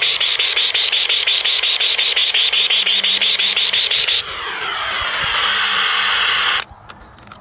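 Homemade metal detector made from a satellite LNB and a portable AM/FM cassette radio: the radio's speaker gives loud static with a rapid pulsing whine, about seven pulses a second, while it is held over the dug-over spot. About four seconds in the pulsing stops, leaving a hiss with wavering whistles, which cuts off suddenly near the end as the radio is switched off.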